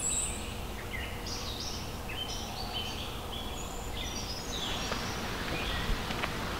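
A songbird singing a rapid string of short, high notes that step up and down in pitch, thinning out after about four seconds, over a steady low rushing background. There are a couple of soft clicks near the end.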